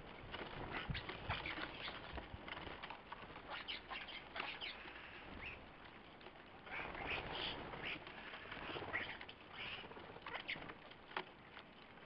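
Flock of common starlings, adults and juveniles, squabbling at close quarters: a constant mix of harsh, scratchy chattering calls and short clicks, broken by flurries of wing-flapping as birds land and take off.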